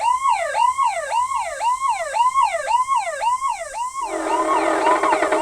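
Ambulance siren in a rapid yelp, its pitch sweeping up and down about twice a second. About four seconds in it drops away under background music with a steady beat.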